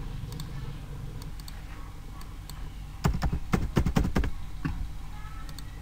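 Computer keyboard being typed on, a quick burst of keystrokes about three seconds in, over a faint steady hum.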